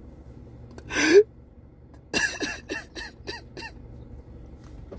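A man crying: a sharp, gasping sob about a second in, then a run of short, broken sobbing breaths.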